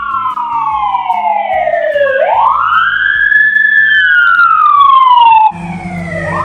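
Police siren wailing, its pitch sweeping slowly down and back up over a couple of seconds per cycle, over background music. The sound changes abruptly about five and a half seconds in, where a second siren sweep carries on.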